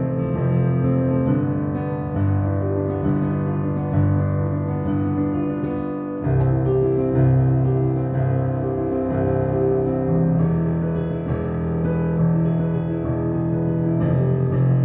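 Piano played on a keyboard: chords over held bass notes, moving to a new chord every second or two, with a fresh low chord struck about six seconds in and repeated right-hand notes above it. It is a trial of a chord change from a minor verse toward a C major chorus.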